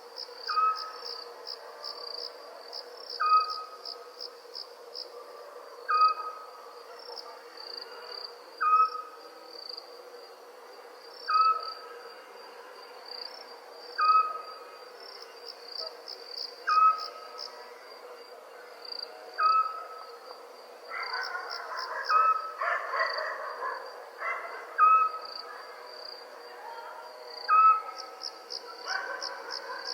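Night ambience: crickets chirping in rapid pulsed trills, with a short animal call repeating about every two and a half seconds. A brief rustling noise comes about two-thirds of the way through.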